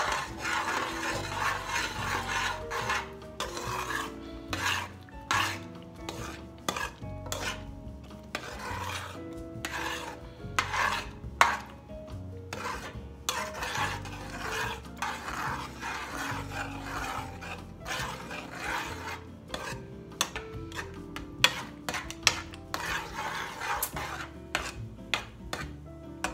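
A spoon stirring and scraping thick ground-meat tomato sauce around a large metal pot, in repeated rasping strokes with occasional sharp clicks against the pot.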